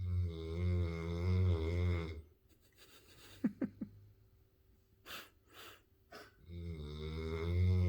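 Pit bull puppy snoring in its sleep: a long, loud, low snore at the start and another building from about six and a half seconds in, with quieter short breathing sounds between.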